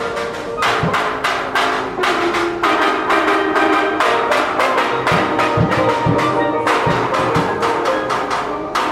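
Steelband music: steel pans holding pitched chords under a fast, even beat of sharp percussion hits.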